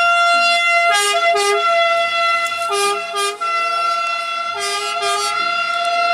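Ambulance siren sounding: a steady high note broken about every two seconds by a pair of short notes at a different pitch.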